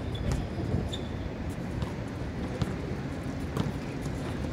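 Basketball players running on an outdoor court: scattered footfalls and knocks about once a second, with a couple of brief shoe squeaks, over a steady low rumble.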